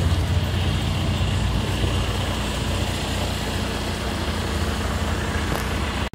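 Bus engine running steadily, with a strong low hum under an even road or traffic noise; the sound cuts off suddenly near the end.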